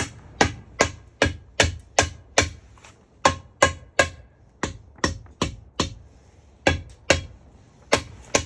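Repeated hammer blows, about two and a half a second in short runs with brief pauses, in a last-ditch attempt to free a seized outboard lower unit.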